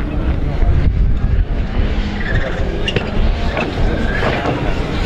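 Rallycross Supercar engines revving hard as several cars race through a loose-surface bend, with a heavy rumble, pitch rising and falling with the revs, and a few short sharp cracks.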